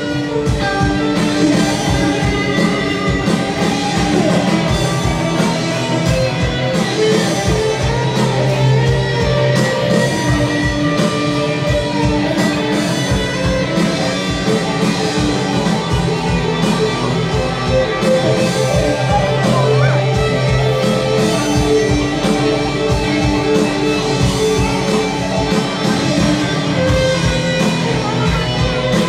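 Live band playing a rock-style song, led by electric guitar, with a woman singing into a microphone.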